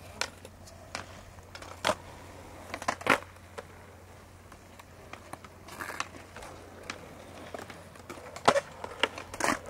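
Skateboards on concrete: several sharp clacks of boards hitting and landing, the loudest two near the end, over the low rumble of wheels rolling.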